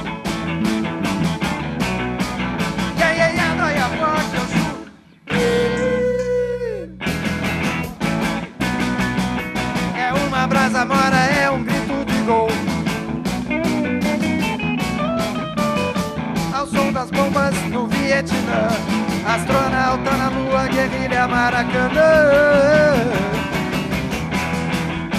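Live rock band playing electric guitars and bass with a steady beat. About five seconds in the band stops suddenly and a single held note rings on for about two seconds before everyone comes back in; bent, wavering guitar notes stand out near the end.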